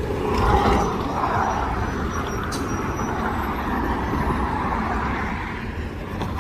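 Road traffic running past, with a city bus pulling in; loudest about half a second in.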